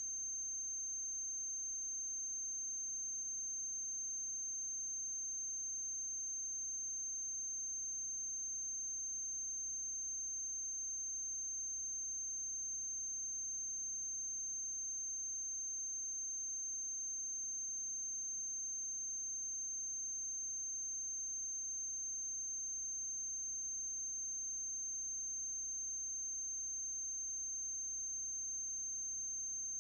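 Steady high-pitched electrical whine with a faint low hum, unchanging throughout, on an otherwise silent soundtrack.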